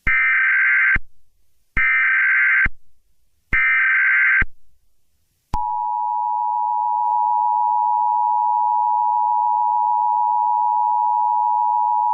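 Emergency Alert System tones: three one-second bursts of the SAME header's digital data tones, then the steady two-tone attention signal, starting about five and a half seconds in.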